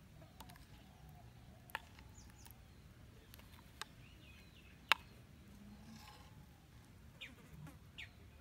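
Faint outdoor background with a few sharp, isolated taps, the loudest about five seconds in, and birds giving short falling chirps near the end.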